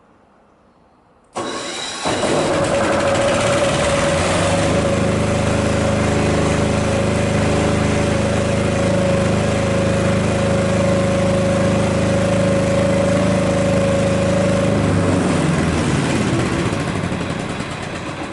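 Kipor KDE6700TA 5 kVA silent diesel generator being electric-started from its control panel. Its single-cylinder air-cooled diesel engine catches about a second and a half in and runs steadily at its governed 3000 rpm, heard from about 3 metres. The sound dies away over the last few seconds.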